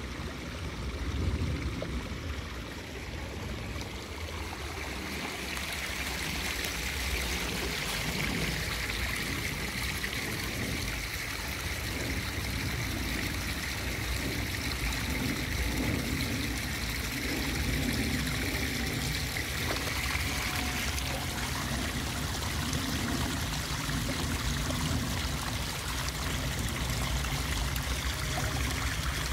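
Steady running water, growing louder about five seconds in, over a low rumble.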